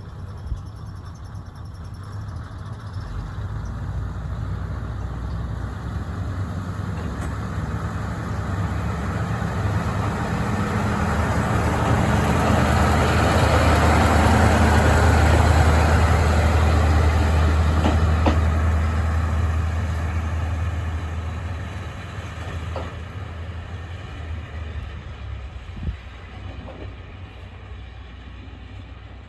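Kominato Railway KiHa 200-series single-car diesel railcar pulling away from a station. Its diesel engine hum swells as it comes near, is loudest about halfway through, then fades as it moves off, with a few sharp clicks from the wheels in the second half.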